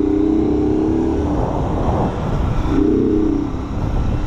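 A small motorcycle's engine running steadily while riding, heard from on the bike with a low rumble of wind and road noise. The engine note fades out about a second in and comes back briefly about three seconds in.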